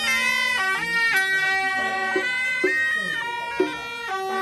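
A reedy wind-instrument melody plays, holding notes that step from pitch to pitch over a steady lower drone.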